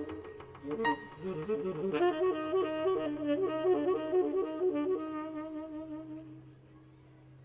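Saxophone playing a quick wavering, alternating figure, then holding one low note that dies away about a second before the end. A few struck piano chords ring out in the first two seconds.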